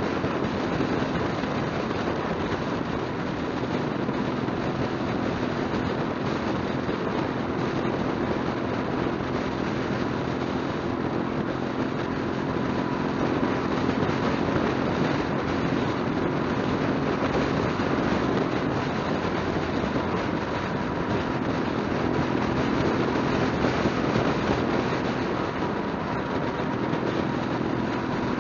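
Motorcycle cruising at steady highway speed: a constant rush of wind and road noise with a low engine hum underneath.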